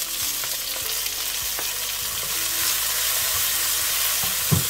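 Garlic, shallot and tomato sizzling in hot oil in a nonstick wok, the sizzle swelling at the start as the tomatoes drop in. A wooden spatula stirs and scrapes through it, with small clicks and one knock near the end.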